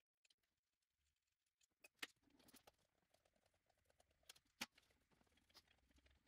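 Near silence: room tone with a few faint, short clicks, the clearest about two seconds in and a little past the middle.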